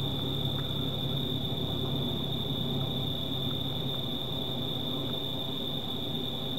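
Crickets trilling in one steady, unbroken high-pitched chorus over a low steady hum.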